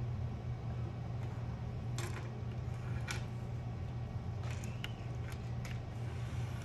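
A few light clicks and taps as a wooden pencil is picked up and handled on a desk, one about two seconds in, another about three seconds in, and several between four and six seconds, over a steady low hum.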